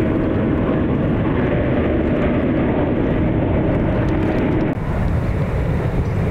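Loud, steady jet engine noise of a Boeing 777 with a faint held hum. About four and a half seconds in, the sound changes abruptly, as at a cut to another recording.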